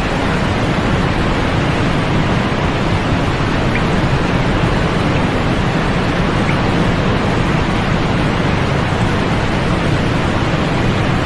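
Steady white-noise sleep track: an even, unbroken hiss weighted toward the low end, with no changes in level.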